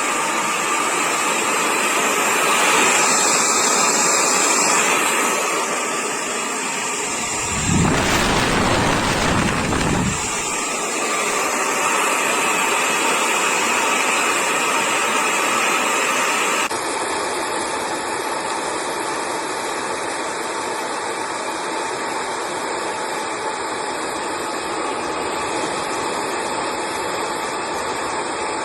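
Hair dryer blowing steadily, a rush of air with a faint motor whine. A deeper rush comes for a couple of seconds about eight seconds in, and the sound changes abruptly to a slightly quieter, steadier blow about seventeen seconds in.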